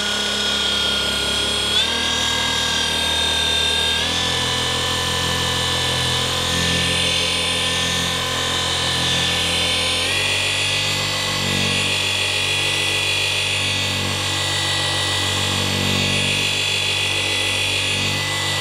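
Orbital polisher with a 15 mm orbit running steadily, working a compound-loaded microfibre pad over car window glass to abrade off contamination and staining. Its motor whine steps up in pitch about two seconds in, again at four seconds and again about ten seconds in, and it cuts off at the end.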